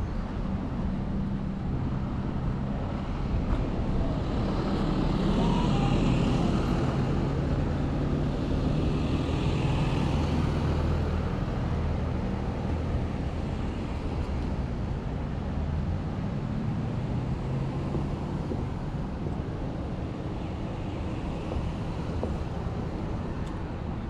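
Road traffic: motor vehicles going past with a steady low engine hum, swelling as a couple of them pass.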